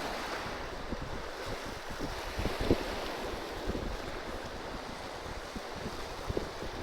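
Sea waves surging, with wind buffeting the microphone in low gusty thumps; one sharper knock a little under three seconds in.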